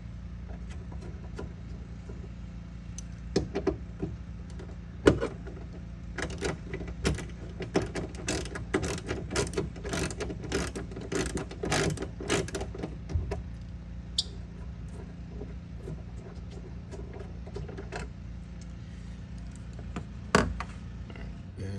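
Socket ratchet clicking in quick runs through the first half or so as the 10 mm bolts on top of the hood hinge are turned out, with a few sharper metal clacks. A steady low hum runs underneath.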